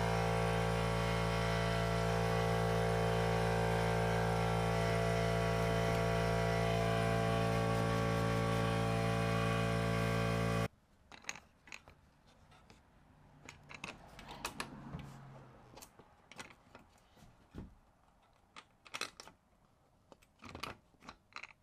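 A steady drone of many held tones that cuts off abruptly about halfway through. After it come faint, scattered clicks and taps as a rectangular aftermarket fog lamp is handled and pressed into the plastic fender opening.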